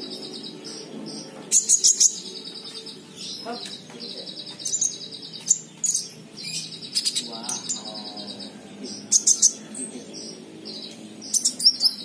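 Brown-throated sunbird (konin) singing in a cage: a series of high, buzzy trilled notes, each held about a second, broken by sharp high chirps, loudest about two seconds in and near the end. It is a wild-caught bird after about three days of care, now singing regularly and starting to sing out, though not yet at full strength.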